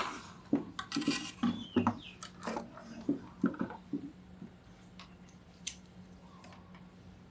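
A CRT television's main circuit board being handled, lifted and turned over on the bench: a quick run of knocks, clatter and rustling of the board and its wiring for about four seconds, then a few light clicks.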